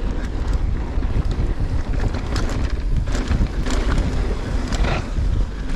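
Wind buffeting the microphone and mountain bike tyres rolling fast over a dirt trail, with frequent sharp rattles and knocks from the bike over bumps.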